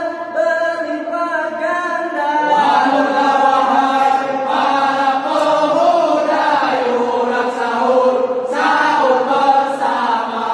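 A group of young men chanting a sahur wake-up song in unison, calling people to rise for the pre-dawn Ramadan meal; more voices join and it grows fuller about two and a half seconds in.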